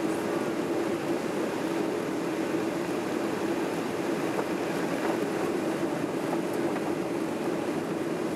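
Steady cabin noise inside a Boeing 737-800 on final approach with flaps extended: engine and airflow noise with a constant low hum and no change in level.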